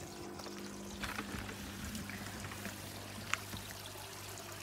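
Water pouring steadily from a koi pond filter's return pipe into the pond, a continuous splashing trickle over a low steady hum, with one short click a little past three seconds in.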